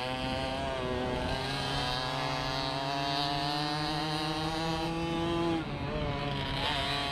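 Racing moped's small two-stroke engine running hard at high revs. Its pitch climbs steadily, dips sharply about five and a half seconds in, and then climbs again.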